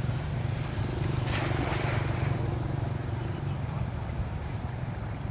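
A thrown cast net lands on the water about a second in: a brief splashing hiss as the weighted net spreads and hits the surface. Under it runs a steady low rumble.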